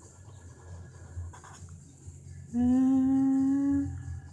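A person humming a single held note for about a second, its pitch rising slightly near the end.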